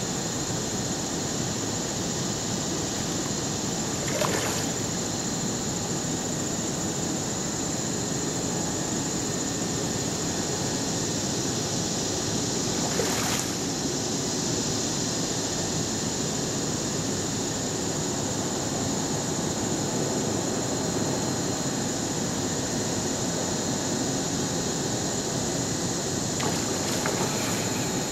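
Steady rushing background noise, with a brief splash about four seconds in and another about thirteen seconds in as a hooked carp thrashes at the surface while being played to the net.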